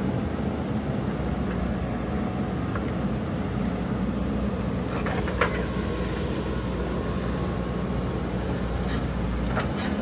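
JCB backhoe loader's diesel engine running steadily while the backhoe arm digs, with a sharp knock about halfway through and another near the end.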